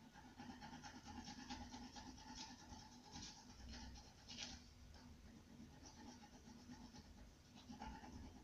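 Faint, rapid scratching of colouring on paper: quick back-and-forth strokes, densest for the first four seconds or so, then sparser, with another short run near the end.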